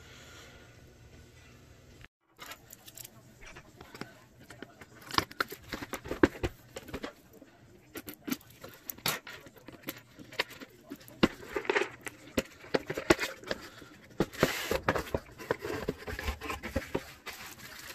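A cardboard jigsaw puzzle box being handled and opened on a wooden table: a quick, irregular run of clicks, taps and scrapes that starts about two seconds in and gets busier toward the end.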